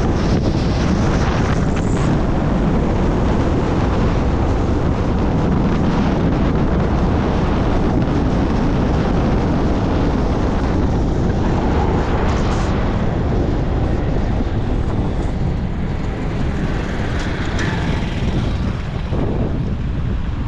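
Chevrolet S10 pickup driving at speed: steady road and wind noise from the moving vehicle, easing slightly near the end.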